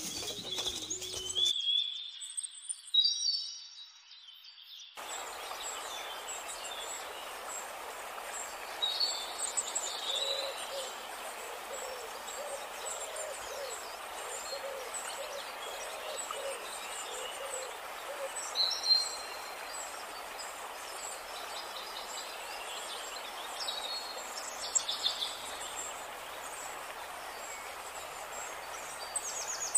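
Steady rush of a shallow forest stream, with birds chirping over it and one bird giving a run of low, repeated hoots.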